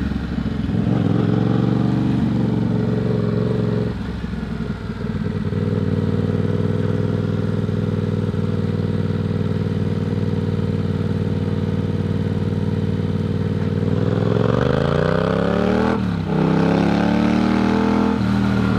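Yamaha MT-07's parallel-twin engine running under way. It holds a steady pitch, falls off about four seconds in as the throttle closes, then cruises steadily. Later it revs up, breaks briefly for a gear change and climbs again, easing off near the end.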